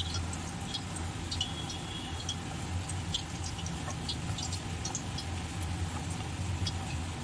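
Hands tossing batter-coated potato and pointed gourd strips in a steel bowl: light, irregular ticks and clicks of the pieces against each other and the metal, over a steady low hum.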